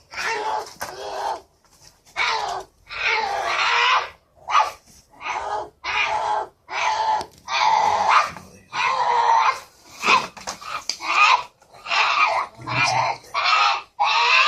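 An animal calling over and over, loud harsh cries of about half a second to a second each, roughly one a second.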